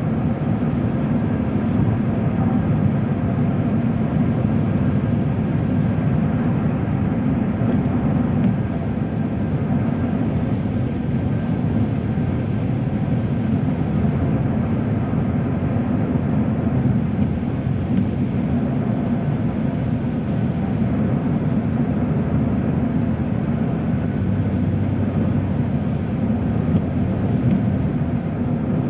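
Steady road and engine noise heard inside a car's cabin cruising at highway speed, a low even rumble.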